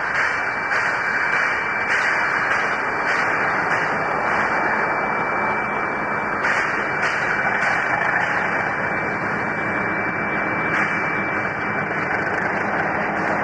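Diesel locomotives hauling a freight train approach and pass, their engines running, over a continuous loud hiss of steam from a standing steam locomotive.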